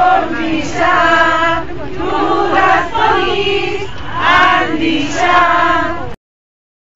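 A crowd chanting a slogan in unison, many voices in short repeated rhythmic phrases. The sound cuts off abruptly about six seconds in.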